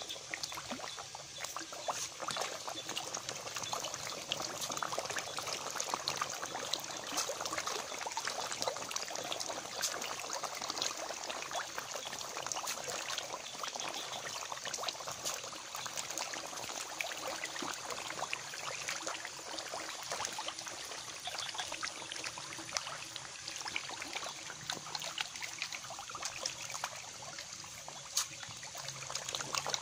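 A crowd of Nile tilapia thrashing at the pond surface as they take feed, making a continuous patter of many small splashes.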